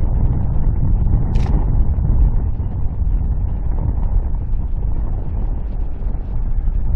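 Wind buffeting the microphone: a steady, uneven low rumble, with a short sharp click about a second and a half in.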